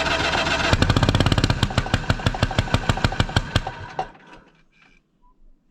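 Engine on an old Caterpillar No. 12 grader running loudly, then a run of firing knocks that slow down and fade away over about three seconds as it stops.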